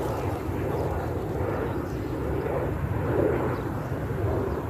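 Steady low rumble of background noise, with faint voices in the background.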